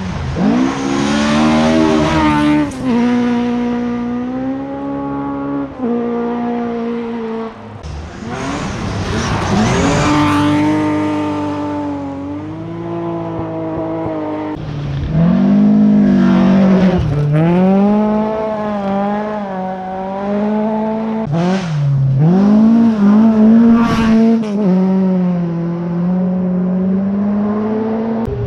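Rally car engines at high revs passing at speed on a gravel stage, the pitch dropping and climbing again and again through gear changes and lifts. The engine sound swells and fades several times, with a few short sharp cracks.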